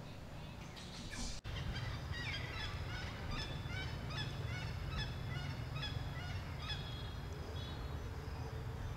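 Rapid series of short, high-pitched chirping animal calls, several a second, over a steady low rumble; they start after a brief cut in the sound about a second and a half in.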